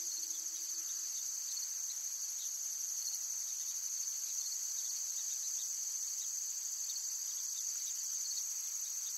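A steady, high-pitched chorus of insects chirring, with a fast, even pulse. The last low notes of music die away in the first two seconds.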